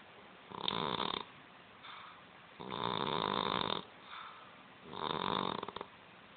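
Persian cat snoring in her sleep: three loud snores, each about a second long and roughly two seconds apart, with faint breaths between them. Snoring like this is typical of the flat-faced Persian breed.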